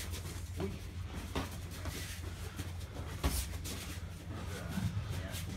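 Bare feet shuffling and stepping on a boxing ring's canvas, with scattered dull thuds of boxing gloves landing during sparring; the sharpest knock comes a little over three seconds in. A steady low hum runs underneath.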